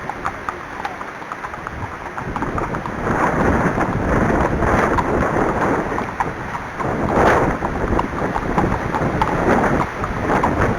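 Strong gusty wind buffeting the microphone, a loud rumbling noise that swells about two seconds in and rises and falls with the gusts.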